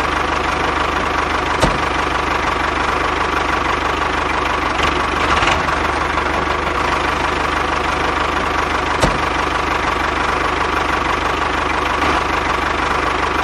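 Diesel tractor engine running steadily with a fast, even knocking chug. Two brief sharp clicks stand out over it, one near the start and one partway through.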